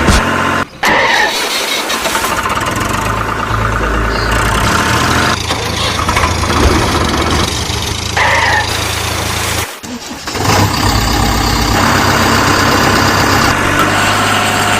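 Diesel engines of construction machinery running steadily, heard in several clips joined by abrupt cuts about a second in and again about two-thirds of the way through.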